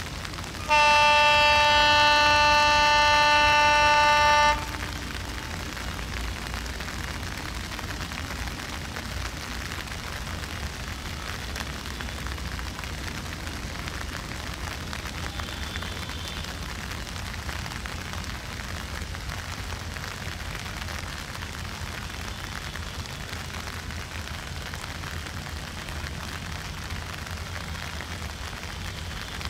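Diesel locomotive air horn sounding one long, steady blast of about four seconds near the start. After it comes a steady hiss of rain over a low rumble.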